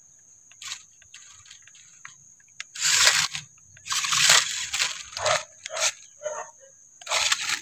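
Toy RC crawler truck scrabbling over a log and dirt: its tyres and body crunch and clatter in a run of short bursts starting about three seconds in, as it climbs and tips off the log.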